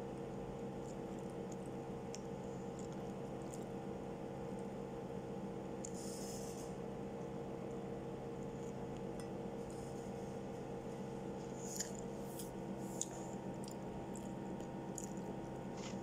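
A steady hum with a few short, faint soft rustles, about six seconds in and again around twelve to thirteen seconds, as a folded flatbread pizza is handled and bitten into.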